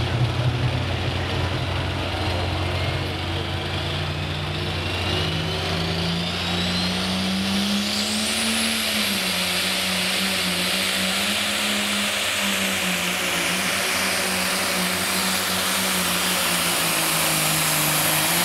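A super or pro stock pulling tractor's engine runs hard under load, hooked to the weight-transfer sled. Its pitch steps up about five seconds in and then holds with small swells, and a high whine rises over a few seconds and then holds.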